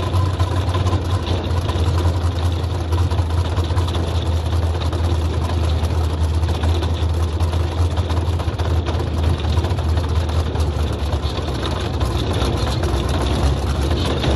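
Open-wheel dirt-track race car's engine running steadily at low speed, heard from a camera mounted in the car's cockpit.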